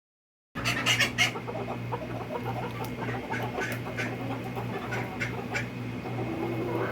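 Chickens clucking and squawking in short, sharp calls, busiest about a second in, over a steady low hum.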